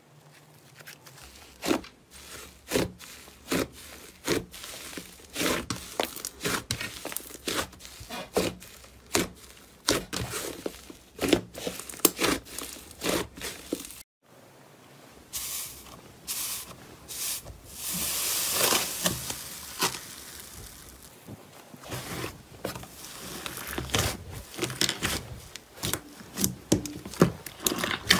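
Slime being handled by hand: stretched and folded, it gives off many sharp sticky pops and crackles. After a sudden break about halfway through, thick green slime in a glass dish is pressed and squished, with a brief hiss and then more pops and squelches.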